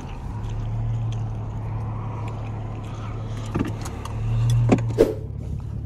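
2012 Audi A7's supercharged V6, muffler and resonator deleted, running with a steady low drone heard from inside the cabin at low speed, swelling briefly about four seconds in. A few short clicks or knocks sound near the middle and toward the end.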